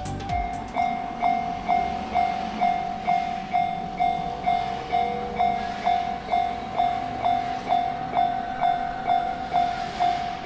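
Japanese railway level-crossing warning bell ringing, a steady dinging tone that repeats evenly about twice a second. It starts just under a second in.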